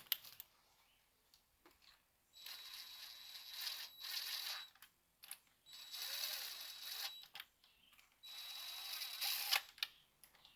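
An impact tool run slowly in three short spins of about a second and a half each, with a steady whine. It is feathered lightly on the trigger to drive the intake manifold bolts in, stopping before the hammer starts clicking.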